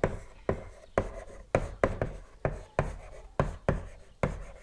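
Chalk writing on a blackboard: about a dozen sharp, short chalk strokes and taps in quick succession as a word is written.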